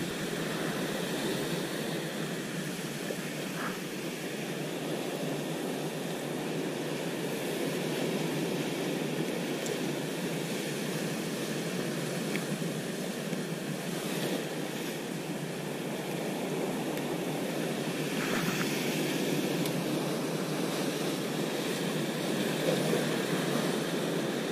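Sea surf breaking and washing over rocks: a steady rushing noise.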